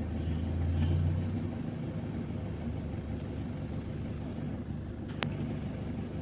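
Strong wind buffeting the microphone: a steady low rumble, heavier in the first second or so, with one sharp click about five seconds in.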